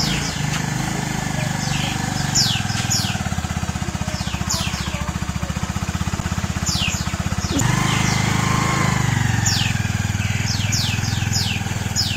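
A small engine running steadily with a fast low putter; about seven and a half seconds in its note shifts and it gets a little louder. Birds chirp over it with many short, quickly falling calls.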